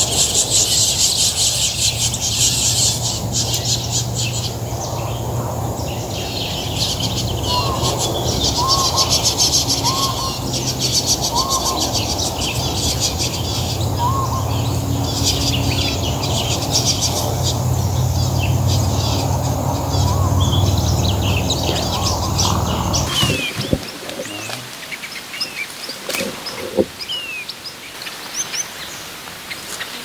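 Long-tailed finches chirping: a dense, rapid chatter of high calls over a low rumble, with a few lower falling notes in the middle. About three-quarters of the way through it switches suddenly to a quieter scene of sparse single chirps and short falling whistles.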